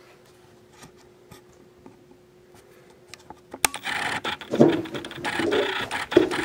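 Autofocus motor of a 50mm lens on a Canon SL2 whirring and clicking as it hunts for focus, heard through the camera's built-in microphone. It is faint at first and much louder after a sharp click about three and a half seconds in, mixed with rustling close to the camera. This is the lens noise that spoils the audio when the camera's own mic is used.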